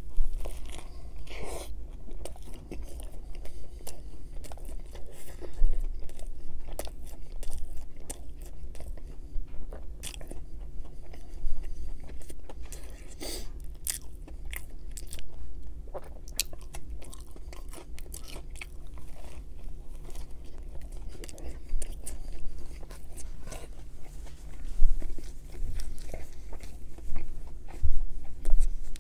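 Close-miked biting and chewing of a McDonald's crispy chicken sandwich on a sesame-seed bun, with many small crunches from the breaded patty and lettuce.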